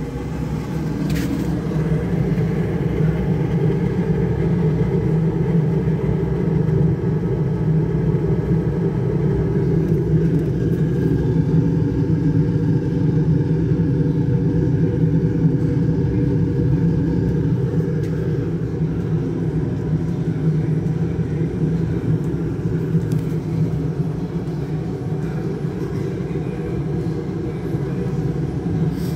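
Homemade waste-oil stove burning hard, with its burner and air blower giving a steady low drone.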